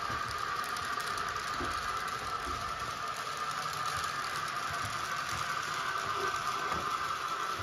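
Model steam locomotive (Fleischmann 150 X) running with its DCC sound decoder playing synthesized steam sounds through a small speaker: a steady hiss over a steady mid-pitched whine.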